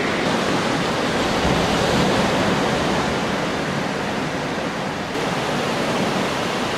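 Sea surf breaking and washing over the shore, a steady rushing.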